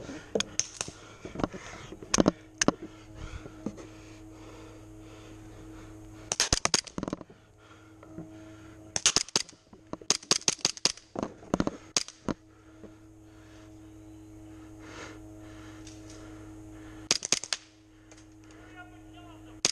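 Airsoft guns firing in short rapid bursts of sharp snapping shots, about five bursts, with a few single shots in the first few seconds.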